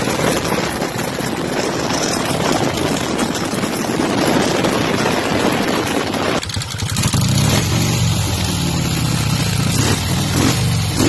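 Harley-Davidson Knucklehead V-twin chopper engine, breathing through open twin carburettors, running loud. For the first six seconds it runs rough and dense. About six seconds in the sound changes abruptly to a steadier, deeper running.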